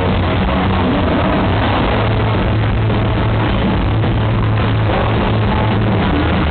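Live rock band music played loud over a concert sound system. It is a dense, steady wash of sound with held low bass notes underneath.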